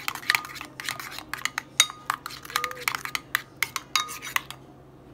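Metal spoon stirring a thick mayonnaise-based sauce in a ceramic bowl, clicking and clinking against the bowl's sides in quick, irregular taps that stop about four and a half seconds in.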